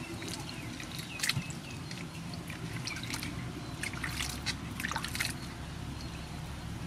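Vegetables being washed by hand in a metal basin of water: repeated small splashes and sloshing, with water trickling and dripping off a peeled green papaya as it is lifted from the basin.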